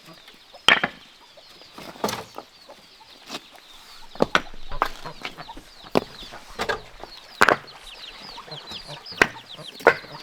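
Chickens clucking and chirping, with many short high falling chirps from about four seconds in. Sharp knocks come every one to two seconds.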